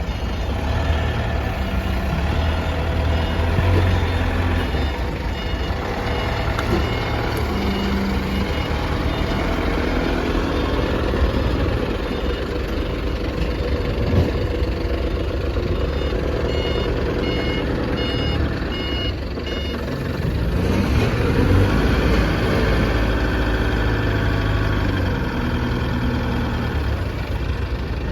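LiuGong E30 forklift running and working, its drive and hydraulics rising and falling in pitch, with its reversing alarm beeping in short runs of repeated beeps several times.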